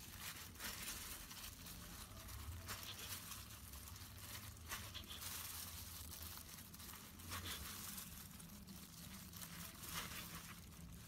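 Faint knife slicing through a log of rolled dough, with scattered light taps of the blade on a wooden cutting board and the crinkle of disposable plastic gloves.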